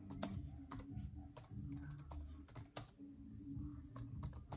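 Typing on a laptop keyboard: irregular, quick key clicks as a short line of text is entered, over a low steady hum.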